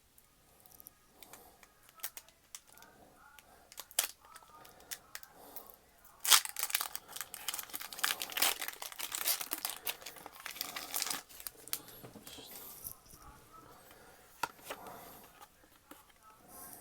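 Plastic and cardboard packaging of a trading-card box crinkling and tearing as it is handled and unwrapped. Scattered light rustles and clicks at first, then a dense stretch of crinkling from about six to eleven seconds in, easing off to lighter rustling.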